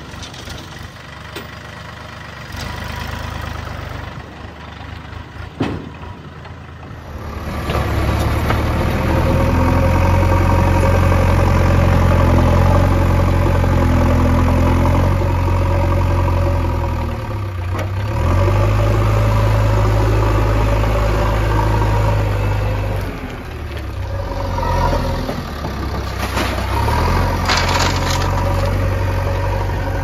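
A Sonalika tractor's diesel engine idling quietly, then from about seven seconds in the diesel engine of a JCB 3DX backhoe loader running loud and steady as it works its front loader bucket. The engine dips briefly twice, and a few short knocks come near the end.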